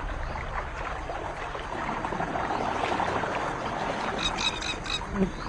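Wetland ambience: a steady wash of water, with a quick run of short, high animal calls about four seconds in.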